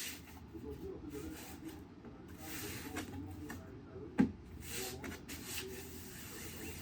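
Soft rubbing and scraping of hands pressing down on the covering material to make a circle print, in short strokes, with one sharp knock about four seconds in.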